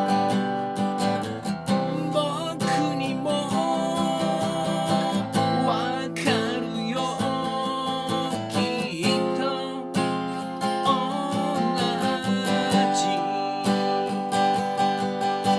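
Music played on a strummed acoustic guitar.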